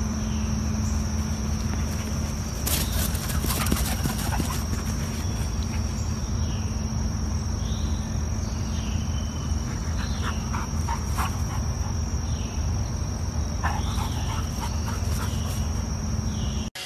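Outdoor ambience: a steady high insect drone with a low steady hum beneath it, repeated short falling chirps, and a few sharp clicks, about three seconds in and again around ten to fourteen seconds.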